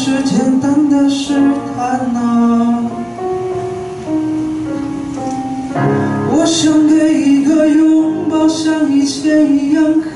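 Live Mandarin pop ballad: a male vocalist singing into a microphone over keyboard and cajon accompaniment, the music thinning out midway and coming back fuller about six seconds in.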